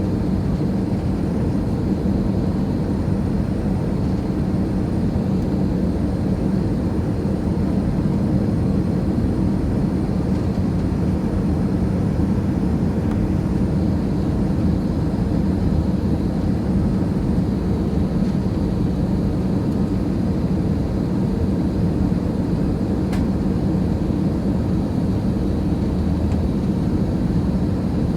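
Steady drone of an airliner cabin in flight: engine and air noise with a constant low hum.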